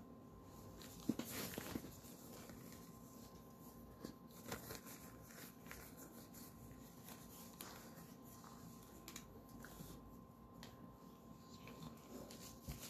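Faint handling noise: scattered light rustles and taps over a steady low hum.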